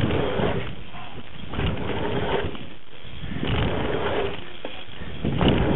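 Wind rushing over a helmet camera's microphone, with BMX tyres rolling on packed dirt, swelling and easing roughly every second and a half as the bike goes over a line of dirt jumps. It is loudest near the end.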